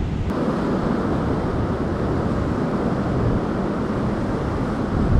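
Steady rushing noise of ocean surf on the coral reef, mixed with wind on the microphone.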